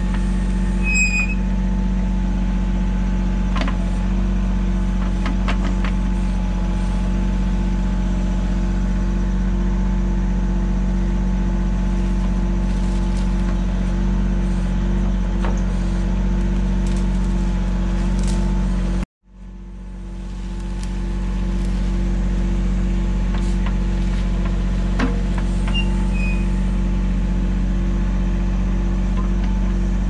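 Mahindra 1626 compact tractor's three-cylinder diesel engine running steadily while its backhoe works, with a few sharp knocks scattered through. The sound cuts out briefly about two-thirds of the way through and fades back up.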